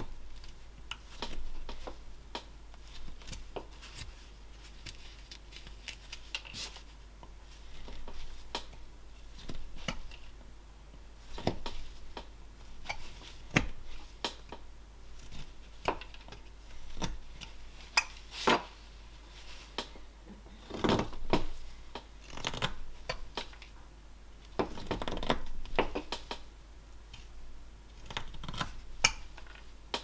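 Flexcut roughing knife cutting shavings from a block of basswood: short scraping slices at irregular intervals, a second or two apart, with a few longer, heavier cuts.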